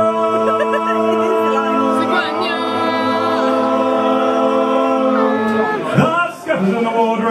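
A group of singers singing a sea shanty a cappella, holding one long chord in several voices for about five seconds. After a short break, the singing starts again near the end.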